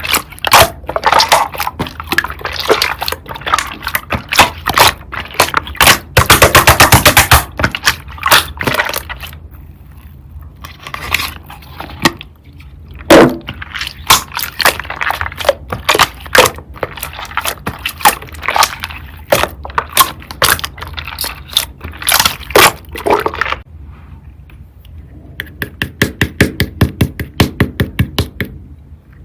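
Slime being squished and pressed in the hands, giving many sharp clicks and pops that are dense at first and sparser later. Near the end comes a run of quick, regular clicks, about six a second.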